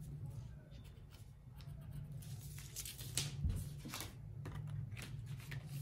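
Faint rustling and scraping of drafting paper and a tape measure being handled, with a pencil mark and several scattered ticks and rustles, over a steady low hum.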